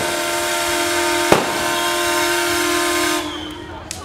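Paddle steamer's steam whistle blowing one long steady note, cutting off about three seconds in. A single sharp bang sounds over it about a second in.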